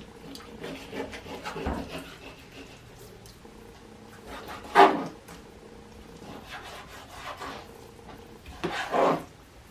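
Kitchen knife cutting raw chicken breast on a cutting board: soft rubbing and scraping strokes, with two louder strokes about five and nine seconds in.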